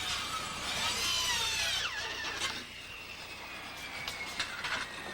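Power drill whining as it speeds up and slows down while securing windows, followed by a few sharp knocks.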